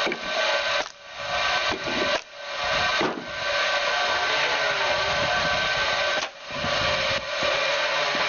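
Power saw cutting through wood: a harsh rasping in short runs about a second long with brief dips between, and one longer steady cut of about three seconds in the middle.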